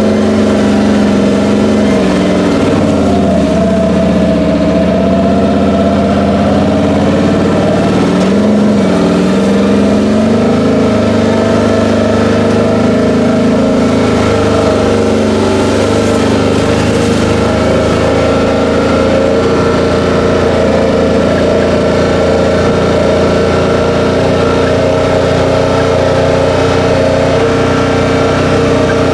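Can-Am off-road vehicle's engine running while driving, its pitch dipping and recovering twice in the first ten seconds, then holding steady.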